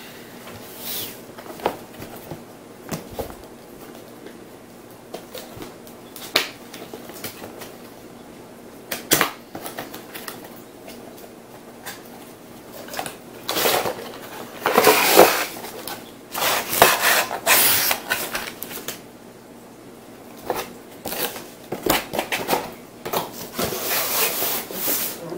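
Cardboard box of an LED aquarium light being opened and unpacked: cardboard and packaging rubbing, sliding and rustling, with scattered knocks. It is busiest about halfway through and again near the end.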